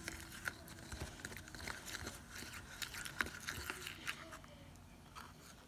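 A stick stirring watered-down paint in a small plastic cup: soft, irregular wet clicks and scrapes as it knocks against the cup's sides.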